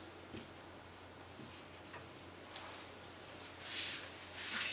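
Faint handling sounds of braided T-shirt fabric strips on a plastic sheet: a few soft ticks, then two soft rustles near the end.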